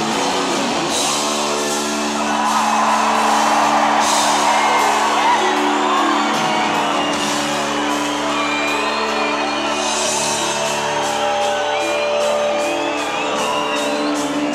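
Live worship band music with a steady beat and held chords, with a crowd whooping and shouting over it in a large hall.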